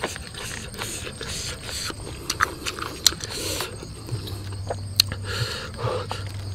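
Eating and handling sounds: fingers scraping over the knobbly rind of a jackfruit, and wet mouth clicks and lip smacks, heard as scattered short clicks and scrapes. A low steady hum comes in about four seconds in.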